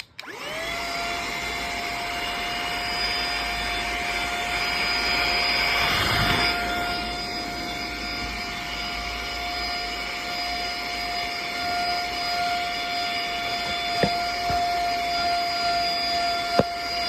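Itutn cordless handheld car vacuum cleaner switched on, its motor spinning up within half a second to a steady whine over a rush of air. The sound turns louder and rougher for a moment about six seconds in, and two sharp clicks come near the end.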